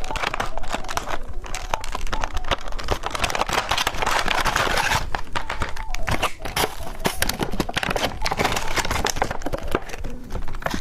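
Candy wrapper being crinkled and torn open to unwrap a radish-knife-shaped chocolate: a dense, continuous run of crackles and rustles.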